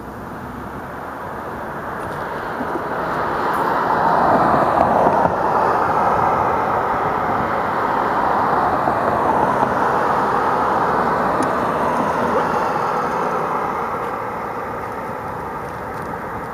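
Road traffic going by: a rushing noise of tyres and engines that swells over the first few seconds, holds, and fades near the end.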